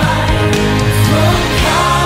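Hymn music: a recorded hymn with singing voices over sustained instrumental accompaniment.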